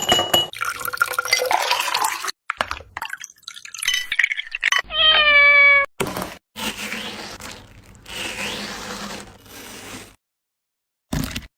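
A cat meows once for about a second, about five seconds in, with a slightly falling pitch. Short cut-together cooking sounds come before it, and a longer stretch of pouring or running liquid follows.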